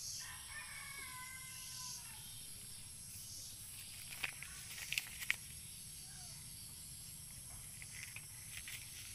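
A rooster crows once near the start, a single drawn-out call of under two seconds that drops in pitch at the end. A few sharp clicks follow a few seconds later and are the loudest sounds.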